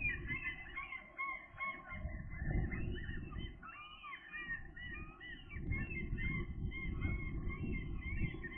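Gulls calling, many short overlapping calls, over a low rumble of wind noise.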